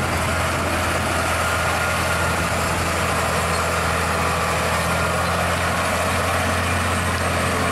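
Scania truck's diesel engine running steadily as it hauls two loaded side-tipper trailers. A constant low drone sits under a broad hiss of road noise.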